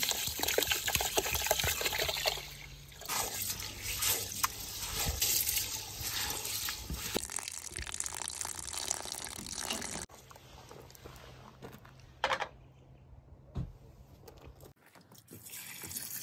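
Water being poured into a cooking pot of rice and lentils for khichuri, splashing and trickling. After about ten seconds it drops abruptly to a quieter stretch broken by two short knocks.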